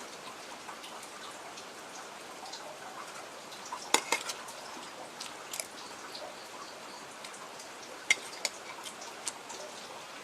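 Eating utensils clinking against a bowl of noodle soup, a handful of sharp clicks about four, five and a half and eight seconds in, over a steady soft hiss.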